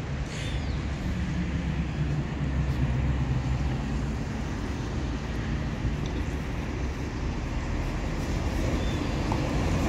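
Diesel engine of an intercity coach running, a steady low rumble that grows a little stronger from about one to four seconds in.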